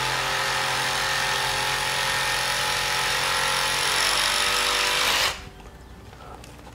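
Power saw running steadily as it cuts through a padded cardon cactus arm, then stopping abruptly about five seconds in as the arm comes free.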